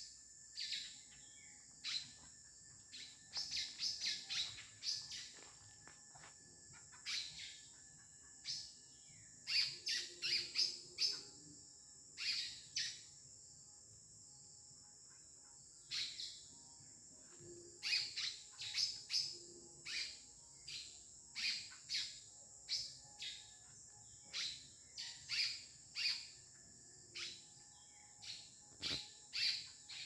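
Small birds calling with short, sharp, falling chirps, many coming in quick runs, over a steady high-pitched insect drone.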